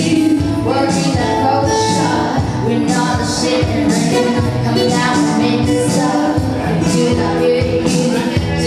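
Live band playing through a PA: a woman singing into a microphone over amplified acoustic guitar, with a steady beat underneath.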